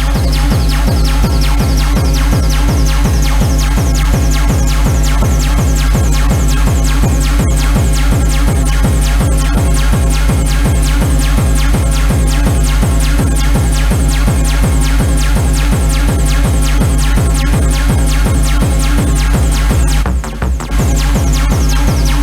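Loud techno from a DJ set, with a steady pounding kick drum. A high synth sweep rises over the first several seconds and stays up, then falls away near the end, where the bass briefly drops out.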